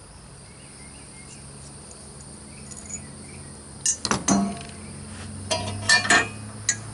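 Steel parts of a tire-changer stand clinking and knocking together as the long bolt and washer for the breaker bar handle are handled and fitted: a few sharp metallic clinks about four seconds in, more around six seconds, and one near the end.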